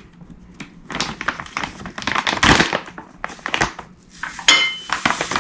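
Granulated sugar poured from a drinking glass into a bowl of almond flour, a rushing hiss that is loudest midway. About four and a half seconds in, the glass clinks against the bowl and rings briefly.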